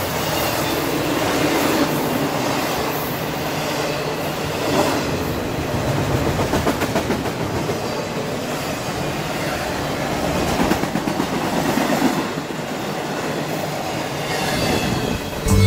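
A long, fast Norfolk Southern intermodal freight train of double-stack container well cars passing close by: steel wheels running on the rails with a steady noise and occasional louder clacks. Music comes in right at the end.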